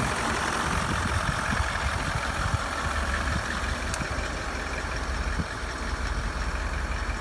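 The 4.4-litre TDV8 twin-turbo diesel V8 of a 2012 L322 Range Rover idling steadily from a cold start. The prominent ticking noise is not present while it is cold.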